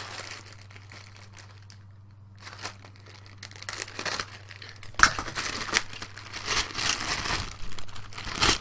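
Clear plastic bag crinkling and rustling as it is handled, in a quick run of sharp crackles that starts about halfway through and grows louder. A low steady hum sits under the quieter first half.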